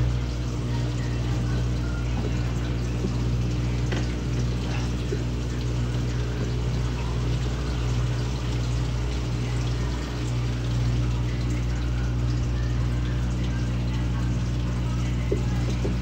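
Steady low electrical hum, like a motor or appliance running, with a few faint clicks and knocks.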